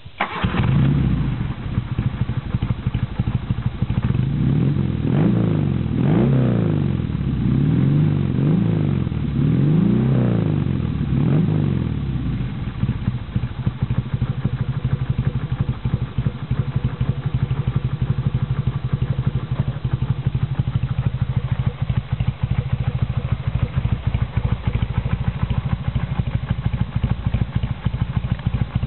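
A 1975 BMW R90S's air-cooled flat-twin engine, breathing through Hoske Vattier silencers, fires up right at the start. It takes a run of about five quick throttle blips, then settles into a steady idle from about twelve seconds in.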